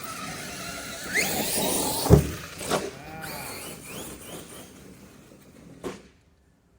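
Arrma Kraton RC car's electric motor whining up in pitch as it accelerates, then a hard thud about two seconds in as the car hits the ground, a smaller knock half a second later, and the motor winding down. A sharp click near the end, after which the sound cuts off.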